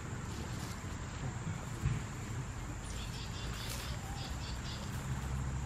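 Garden ambience with a steady high insect drone throughout. A few short bird chirps come about three seconds in, and a single soft knock near two seconds.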